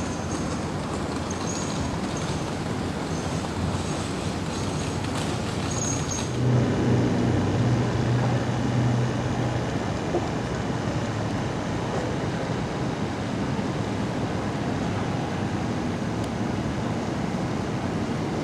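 Steady city street traffic noise. A heavy vehicle's engine hum swells louder about six seconds in and fades again after a few seconds.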